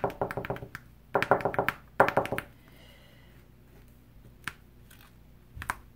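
Bone folder pressed and rubbed over the plastic cover film of a diamond painting canvas. It gives quick runs of crackly clicks and scrapes in three bursts over the first two and a half seconds, then a couple of single ticks near the end.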